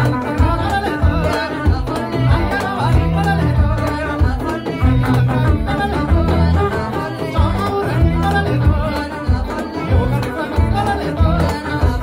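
Live Ethiopian music: singers with a strong, steady low beat.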